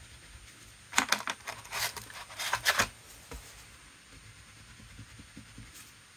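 Watercolour wax crayon rubbed on paper in a run of short scratchy strokes, starting about a second in and lasting about two seconds.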